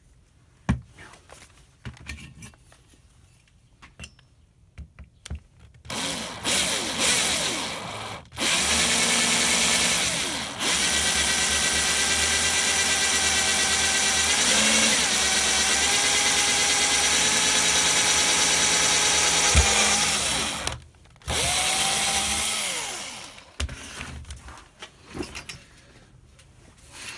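Power drill running an M5 combination drill-and-tap bit through thin aluminium angle, in three runs, the longest about twelve seconds. Its whine dips briefly under load partway through and falls away as each run stops. There are a few handling clicks before and after.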